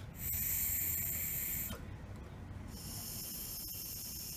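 Air hissing through a canister purge solenoid valve blown into by mouth, in two blows of about a second and a half each. The air gets through with no signal applied, so the valve is stuck open and not working.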